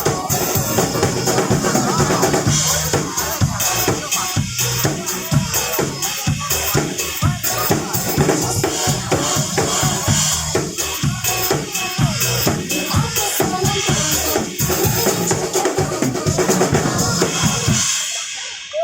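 Drum kit played hard along to a recorded pop track, with steady kick and snare hits under constant cymbal wash. Both drums and music stop abruptly near the end.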